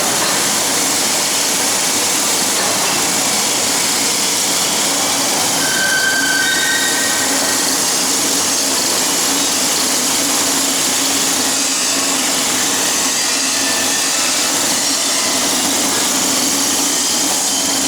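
Dog food extruder running steadily: a loud, even mechanical whir with a constant low hum.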